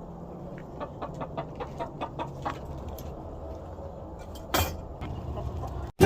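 Free-range hens clucking softly in short, scattered calls, with one brief louder noise about four and a half seconds in.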